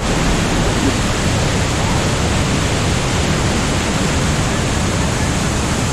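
Steady, loud roar of water pouring over the Rhine Falls, an even rushing noise with no breaks, starting abruptly.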